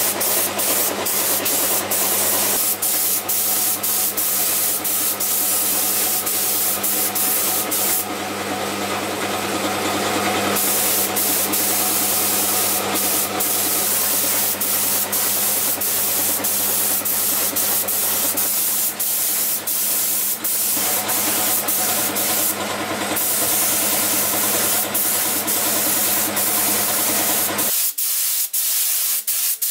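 Compressed-air paint spray gun hissing steadily as it sprays paint, broken by many brief gaps. A steady low hum runs underneath and stops near the end.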